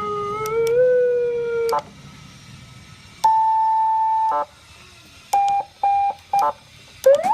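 A 100-watt, seven-tone electronic siren switched between its tones: a held, slightly wavering tone that stops about two seconds in, a steady higher tone for about a second, three short beeps, then a quick rising sweep near the end.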